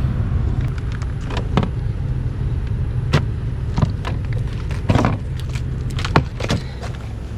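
Steady low rumble of a running vehicle engine, with a scattered series of sharp clicks and knocks from something being handled.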